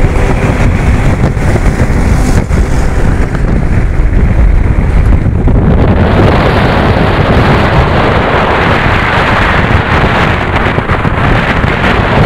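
Wind blasting the microphone of a motorcycle riding at highway speed: a loud, steady rush with low rumble underneath. About six seconds in it turns brighter and hissier.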